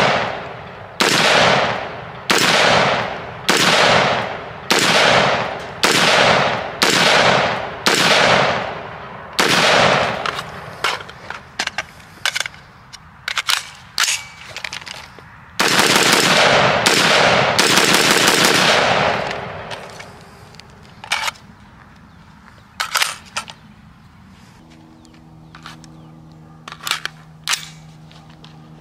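Daniel Defense MK18 short-barrelled 5.56 carbine firing: short bursts about once a second, then one long burst of automatic fire lasting about four seconds. After it come a few fainter sharp cracks, and a low steady hum sets in near the end.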